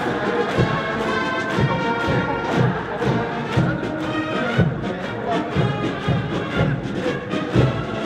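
Military brass band playing a march, with a steady beat of low thuds about once a second.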